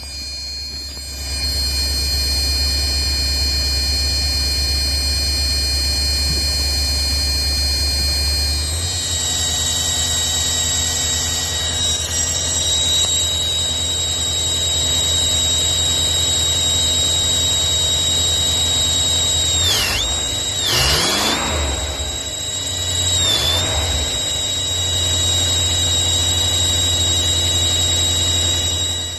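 Ford F250 engine running with a steady high-pitched squeal from under the hood. The squeal shifts about a third of the way in, then briefly dips in pitch three times about two-thirds of the way through, and the sound cuts off suddenly at the end.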